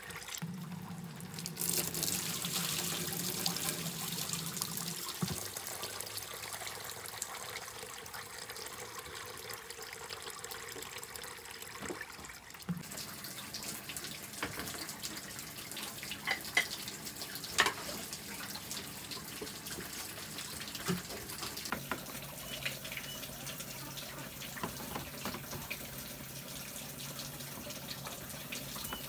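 A steady stream of water from a pipe spout splashing into a metal pot held under it as its contents are rinsed. About halfway through it gives way to a wood fire burning, with a few sharp cracks and knocks as sticks are fed in.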